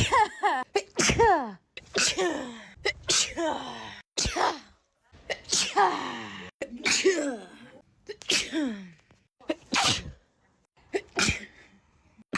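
A person's sneezing fit: about ten sneezes in quick succession, roughly one a second, each a loud burst with a falling pitched 'achoo', with a short lull about two-thirds of the way through. The sneezes start and stop abruptly, spliced together in an edited loop.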